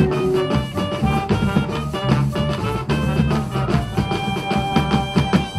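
Colombian fandango music played by brass and drums, with a quick, busy drum rhythm under held horn notes. It closes on a long sustained note that stops just at the end.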